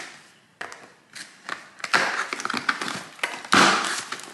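Cardboard box being opened by hand: the flaps are pulled open and the cardboard and packing inside scrape and rustle, with scattered light knocks. The loudest scrape comes shortly before the end.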